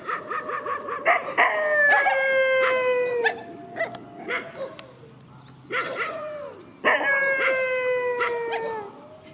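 Dog yelping in quick short barks, then howling, twice over; each howl lasts about two seconds and slides slowly down in pitch.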